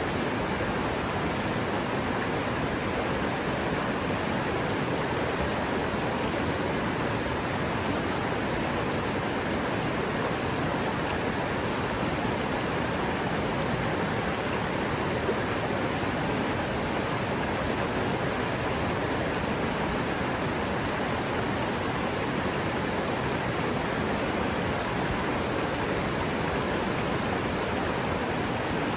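River water running through a forest: a steady, unbroken rush.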